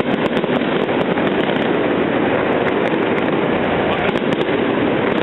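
Fireworks bursting overhead: a dense, continuous run of crackles and pops with no single standout bang.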